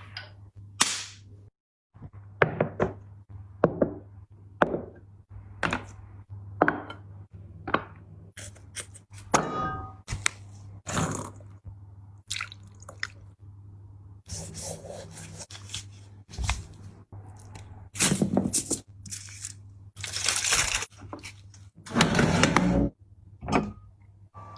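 Close-miked mukbang eating sounds: a run of short wet smacks and clicks of chewing, about one a second, with a few longer noisy bursts in the second half. A steady low hum runs underneath.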